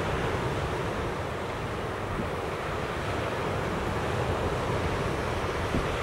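Lake waves breaking steadily on a sand beach, with wind blowing and buffeting the microphone in a low, fluttering rumble.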